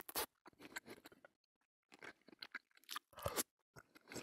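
A person chewing a bite of grilled grain sausage (ryynimakkara) with lingonberry crush, close to the microphone, in irregular short bursts with a louder one at the start and another about three seconds in.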